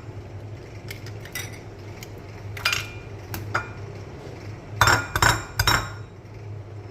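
Three eggs being cracked against the rim of a bowl and dropped in: scattered sharp taps and clinks, with a louder cluster of knocks about five seconds in, over a steady low hum.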